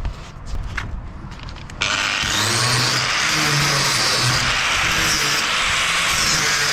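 Stick welding: a few short scratching clicks, then about two seconds in the arc catches and burns with a loud, steady crackling sizzle.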